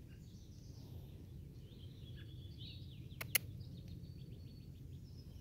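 Faint outdoor yard ambience: a low steady rumble with small birds chirping and a short rapid trill. Two sharp clicks a fraction of a second apart, about three seconds in.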